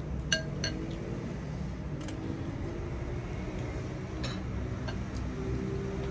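Tableware clinking as chopsticks and spoons knock against ceramic soup bowls and glasses: two sharp ringing clinks in the first second and a few softer ones around four to five seconds in, over a low steady background hum.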